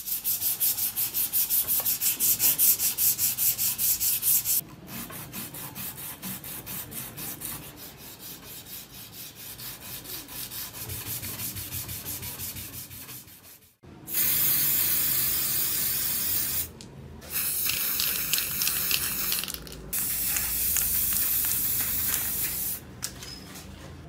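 Sandpaper rubbed back and forth along a wooden tool handle in fast, even strokes. The strokes are loud for the first four or five seconds and then go on more softly. About halfway in the rubbing stops, and three stretches of steady hiss follow, each two to three seconds long.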